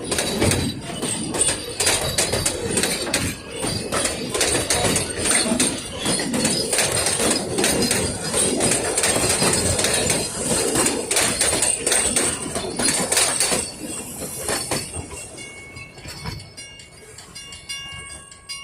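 Puffing Billy narrow-gauge steam train rattling past, its wheels and carriages making a rapid, dense clatter that fades away near the end.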